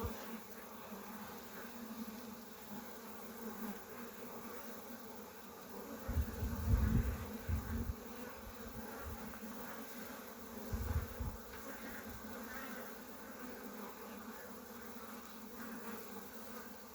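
Honeybee colony buzzing in an opened hive that is being disturbed, a steady hum. Low rumbles come from about six to eight seconds in and again around eleven seconds.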